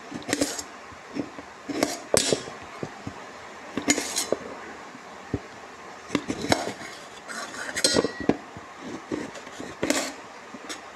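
Metal kitchen pots and utensils clinking and knocking together in an irregular clatter, a dozen or so sharp strikes, some ringing briefly.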